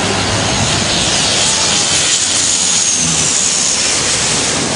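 Turboprop airliner passing low overhead on its landing approach: a loud rush of engine and propeller noise with a high turbine whine that dips slightly in pitch as it goes by.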